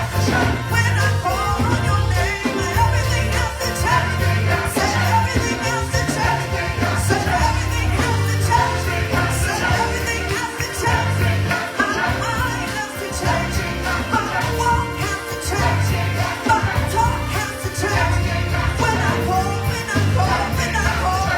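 Choir singing with instrumental accompaniment, a pulsing bass line and drums under the voices.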